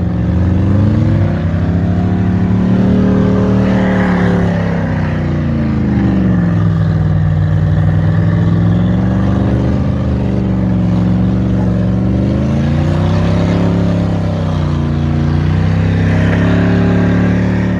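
V8 off-road SUV engine held at full throttle while climbing a sand dune, its revs sagging and rising again several times as the tyres dig and grab.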